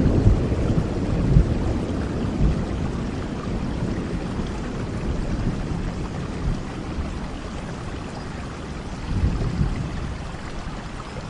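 Rain falling steadily, with a low rumble of thunder that dies away through the first few seconds and swells briefly again near the end.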